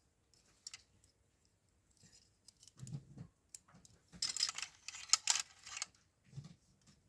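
Small plastic hair claw clips being handled: scattered clicks and clatter with rustling, busiest in a run of bursts about four to six seconds in.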